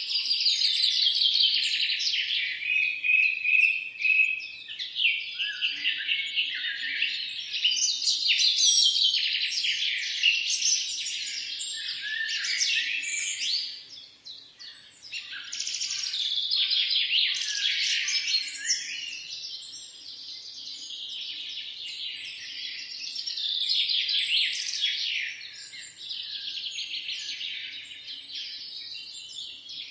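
Several songbirds chirping and singing over one another in a dense, unbroken chorus of quick high chirps and trills. It thins briefly about halfway through.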